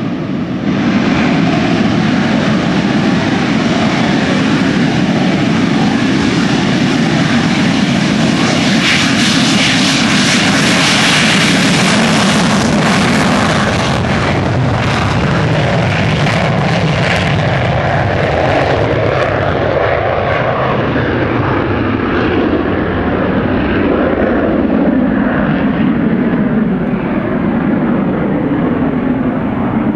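Lockheed F-104 Starfighter's J79 turbojet at full afterburner on a takeoff run, loud jet noise that is sharpest and brightest about ten seconds in. It then loses its hiss and goes duller as the jet climbs away.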